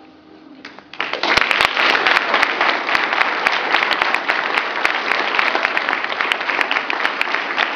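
A faint last musical note dies away, then about a second in an audience starts applauding. Dense, loud clapping continues steadily after that.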